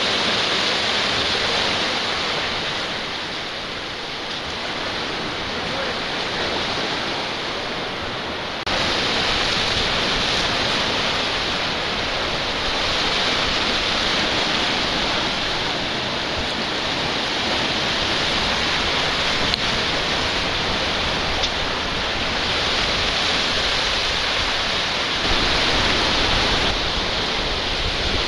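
Sea surf breaking and washing over jetty boulders: a steady, loud rush of water noise that jumps louder about nine seconds in, with wind rumbling on the microphone near the end.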